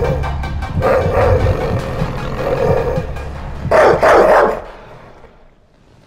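A dog growling in several low rumbles over a low steady drone, then a loud, short burst of barking about four seconds in.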